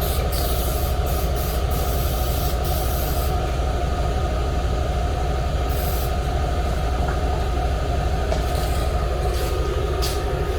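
Aerosol spray-paint can hissing in on-and-off passes over a steady low mechanical drone.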